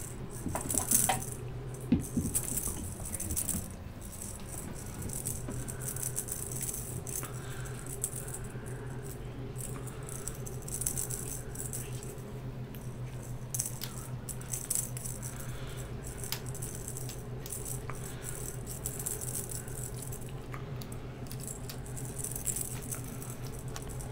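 Cat wand toy with a pink ball and feathers rattling in repeated short bursts, about one every second or two, as it is flicked about and batted, over a steady low hum.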